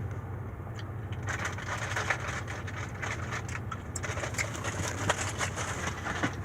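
Sticky chewed gum being kneaded and pulled by hand: irregular small crackles and clicks over a steady low hum.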